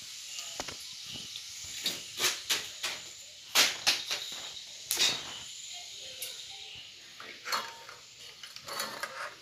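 Irregular rustling with sharp crackles, some louder than others, over a faint steady hiss.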